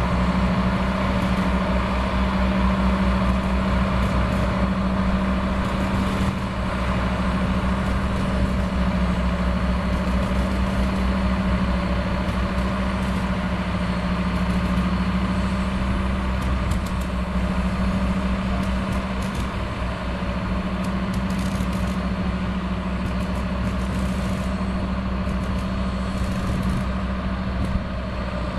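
Cumbres & Toltec diesel locomotive No. 19 running steadily as it moves slowly along the yard track: a constant engine drone with a strong hum and an even low throb.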